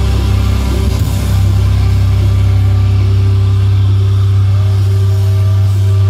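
Live hardcore band heard at full volume through the club's PA: a heavy, steady low bass drone with a few held higher notes, with no clear drum beat.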